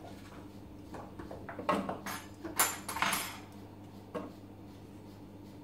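Handfuls of chopped vegetables dropped into the stainless steel bowl of a ThermoCook TC Pro M 2.0 kitchen machine: several knocks and clatters, loudest in the middle, with a last knock about four seconds in.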